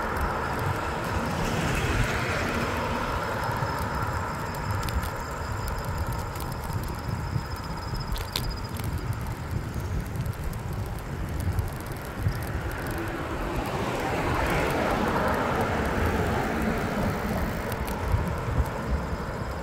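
Wind buffeting the microphone of a bicycle handlebar camera while riding, over road noise. Cars pass close by, the noise swelling about two seconds in and again around fourteen to fifteen seconds.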